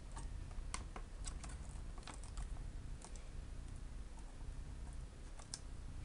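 Light clicks and taps, a dozen or so at irregular intervals, from fitting a foil-wrapped SSD into the drive bay of an open HP Envy Sleekbook laptop. They come thickest in the first three seconds, pause, and return near the end, over a steady low hum.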